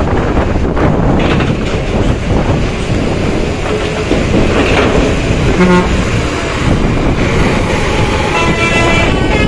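A coach bus engine running loudly as it drives by. A short horn toot sounds about halfway through, and a longer horn blast near the end.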